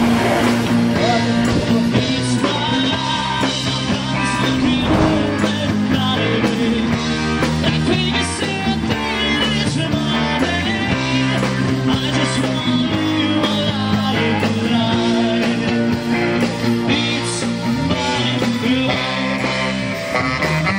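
Rock band playing a rock song: electric guitar and drum kit with steady cymbal hits.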